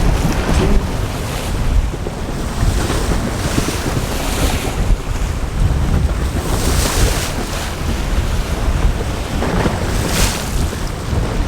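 Strong wind buffeting the microphone: a loud, steady low rumble with surges of hiss three times.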